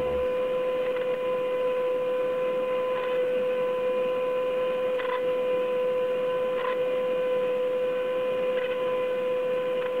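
Router table running with a 1/8-inch roundover bit: a steady high motor whine while a small wooden knob's edges are rounded over against the bit, with a few faint brief cutting sounds now and then.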